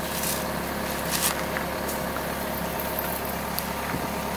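Komatsu PC160 excavator's diesel engine idling steadily, a constant low hum, with a few faint clicks in the first second or so.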